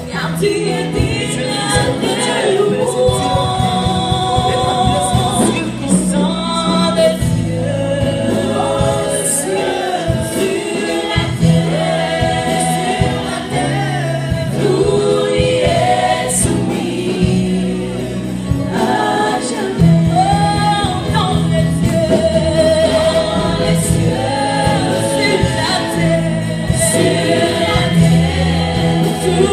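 Gospel choir of women's voices singing into microphones with a man leading at the front, over a band accompaniment with a held bass line that changes note every second or two.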